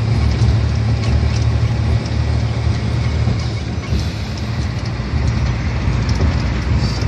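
Steady low rumble of a moving vehicle's engine and road noise, heard from on board, with a hiss of tyres on wet asphalt.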